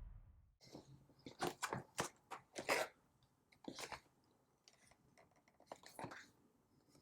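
Irregular sharp clicks and crinkles of something being handled close to the microphone, clustered in the first few seconds with a couple more later.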